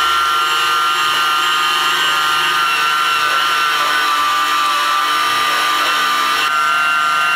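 Vitek electric meat grinder running under load as meat is pushed through it: a loud, steady motor whine, its pitch dipping slightly just after it starts and then holding.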